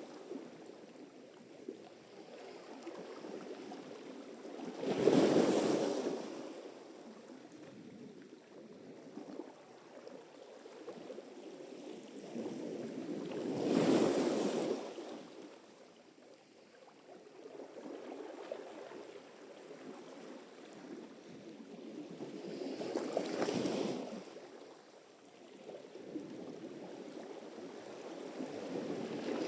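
Sea surf: three waves break about nine seconds apart, each swelling to a rush and fading away, with a steady low hiss of water between them.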